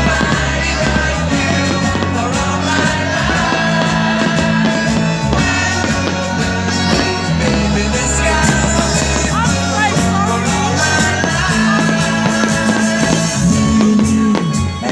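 Loud rock-style music with singing playing over a sound system, with a steady bass line. Near the end, sharp cracks begin over the music.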